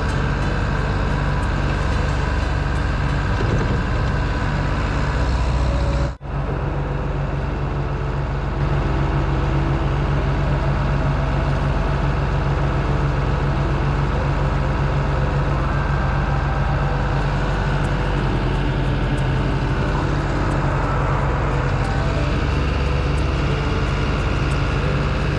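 Caterpillar skid steer loader's diesel engine running steadily as the machine works. The sound drops out for an instant about six seconds in.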